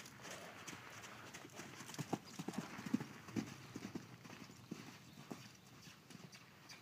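Hoofbeats of a Thoroughbred stallion cantering loose on dirt arena footing: a run of thuds, thickest and loudest between about two and four seconds in, fading later as he moves away.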